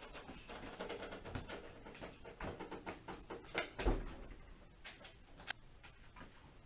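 Clunks, knocks and rattles from a NordicTrack 1750 treadmill deck being lifted upright by hand. The loudest is a heavy thump about four seconds in, followed by a sharp click about a second and a half later.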